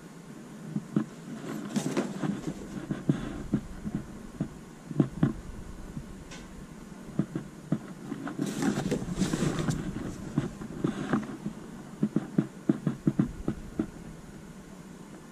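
Handling noise as baseball caps are held up, turned over and swapped by hand: irregular rustling with scattered light knocks and taps, rustling heaviest about two seconds in and again past the middle.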